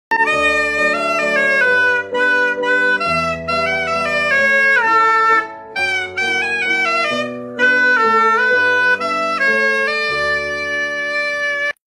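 A reed horn with a flared metal bell plays a bright melody in short phrases over lower sustained backing notes. It stops abruptly near the end.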